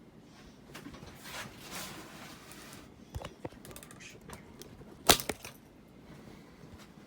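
Rustling handling noise, then a few sharp clicks, the loudest about five seconds in with a second click right after it.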